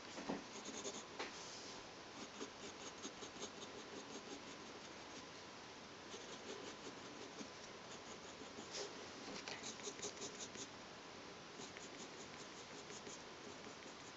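Graphite pencil scratching on paper in runs of quick, short strokes, with brief pauses between the runs.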